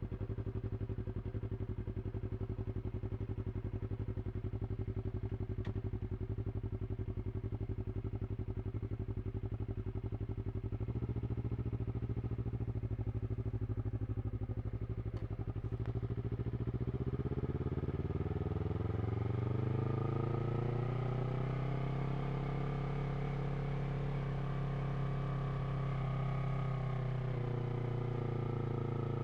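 A 2023 Yamaha R3's 321 cc parallel-twin, running through an Akrapovič slip-on exhaust, idles steadily just after start-up. About halfway through, the engine speed rises gradually over a few seconds and then holds at a higher idle.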